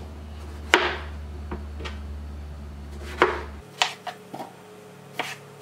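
Knife slicing tomatoes on a plastic cutting board: a string of short, sharp knocks as the blade meets the board, the loudest about a second in and again about three seconds in. A low steady hum underneath stops a little past halfway.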